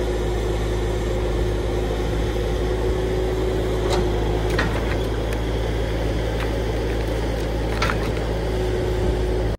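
Bobcat T300 compact track loader's diesel engine running steadily while its forks set a log onto a trailer. A steady whine drops out about halfway and returns near the end, and there are a few light clicks.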